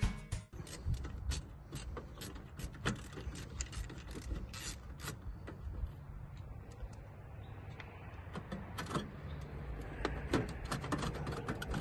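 Irregular sharp clicks and light knocks of a hand tool being worked inside the rear compartment of an RV refrigerator, over a steady low rumble.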